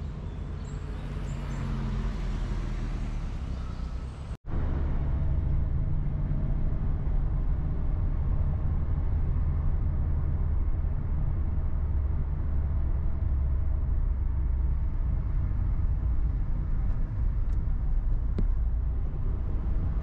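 Steady low rumble of a vehicle in motion, broken by a brief dropout to silence about four and a half seconds in, after which it is louder.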